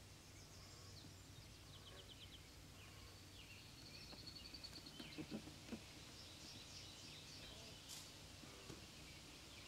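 Near silence: faint outdoor ambience with distant small-bird chirps and a short trill, and a few soft low thumps about halfway through.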